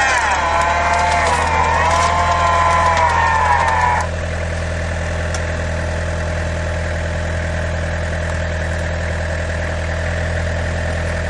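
Winch motor whining under load while pulling a bogged 4x4 out of mud, its pitch wavering; it cuts off suddenly about four seconds in. After that an engine idles steadily.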